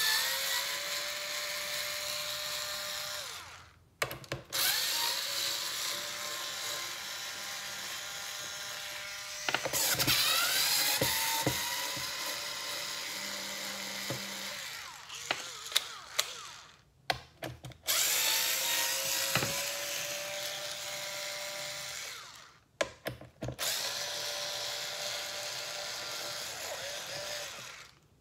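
Cordless screwdriver backing out bumper bolts on a Onewheel XR, one bolt after another: five runs of a few seconds each, every run starting with a rising whine as the motor spins up. Short gaps between runs hold sharp clicks and clinks as the bit is set on the next bolt.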